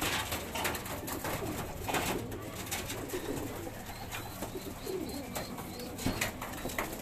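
Racing pigeons cooing in a loft, low and repeated, with scattered sharp clicks and knocks.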